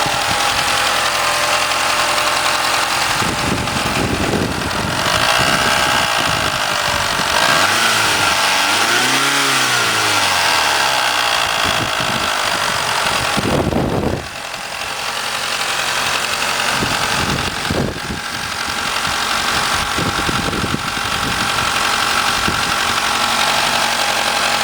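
Mitsubishi 4G63 inline-four engine running and revved up and down once, about halfway through. The engine makes a running noise that turned out to come from a bad timing belt tensioner.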